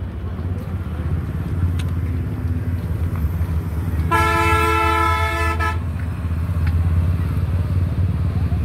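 A vehicle horn sounds once, held for under two seconds about four seconds in, over a steady low rumble of road traffic.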